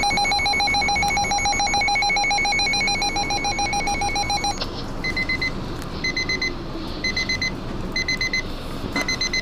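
Electronic emergency alert tones: a rapidly pulsing mid-pitched tone for about four and a half seconds, then a higher beep about half a second long repeating roughly once a second.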